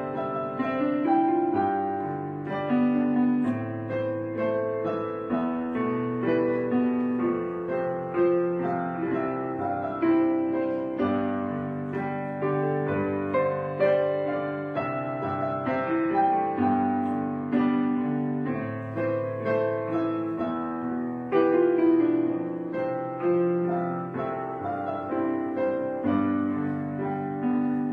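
Background piano music: a steady run of piano notes and chords.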